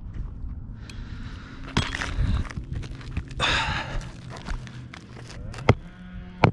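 Hand work on roof shingles: shingles and tools scraping and rustling, with a few sharp knocks, the loudest about five and a half seconds in.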